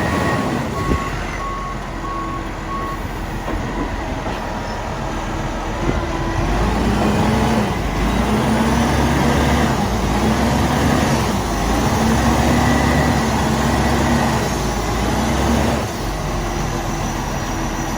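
Concrete mixer truck's diesel engine labouring up a steep hill, a reversing beeper sounding for the first few seconds. About six seconds in the engine grows louder, its pitch rising and falling repeatedly under load, then it eases back near the end.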